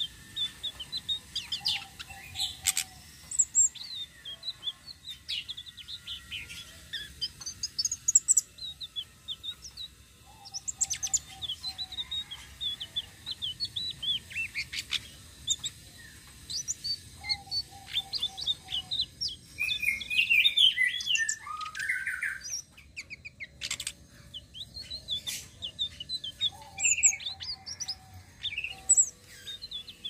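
A caged blue flycatcher (tledekan) singing in long, continuous rolling phrases of quick high chirps and trills, with a few short lower trills between. A louder run of lower, falling notes comes about two-thirds of the way through.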